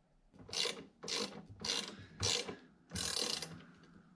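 Hand ratchet wrench clicking in five short strokes about half a second apart, the last one longer, tightening the bolts that mount a winch to its mounting plate.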